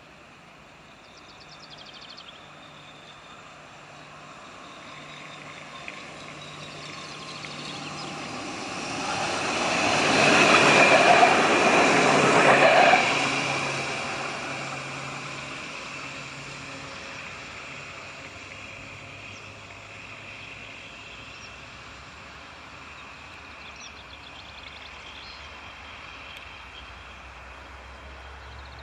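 Alstom Citadis tram approaching on ballasted track, passing by about ten to thirteen seconds in with a rush of wheel and running noise, then fading slowly into the distance.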